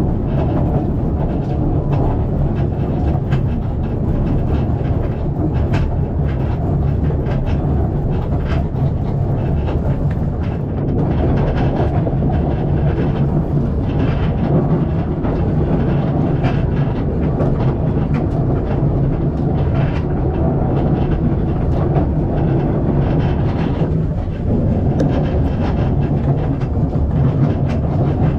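Narrow-gauge steam tourist train carriage running steadily along the track: a continuous low rumble with scattered clicks and knocks from the wheels and running gear.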